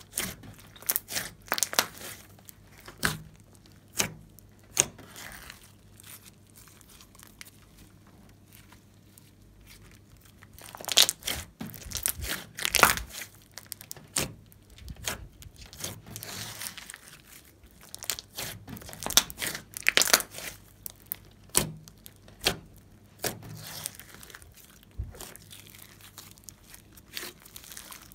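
Hands squeezing, folding and stretching a large mass of glossy slime: irregular sticky clicks, pops and squelches in busy clusters, with a quieter spell about a third of the way in.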